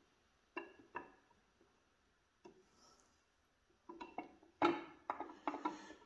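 Metal clicks and clinks as a Mopar 361 big-block camshaft is worked out of the engine block with locking pliers clamped on its nose: a few single clicks, then a quicker run of them from about four seconds in.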